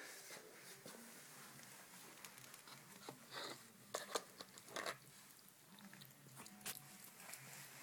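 A cat chewing its food from a bowl: faint, scattered clicks a few times over several seconds.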